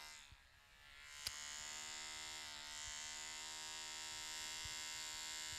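Electric hair clippers buzzing steadily while cutting hair close to the head. The buzz fades for a moment near the start, and there is a single sharp click about a second in.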